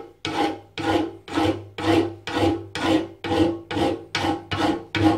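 Hand file rasping back and forth across the steel backing plate of a Yamaha TDR250 front brake pad held in a bench vise, about two even strokes a second. It is smoothing off the rough edges left where the backing plate was stamped out, so the pad slides freely in the caliper.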